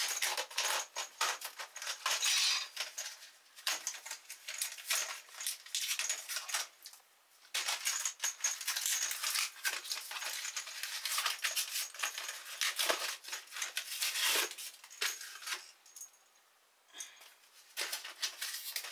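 Plastic packaging of a furniture hardware pack crinkling and crackling as it is handled and opened, with light clicks of small metal bolts, on and off with a couple of brief pauses.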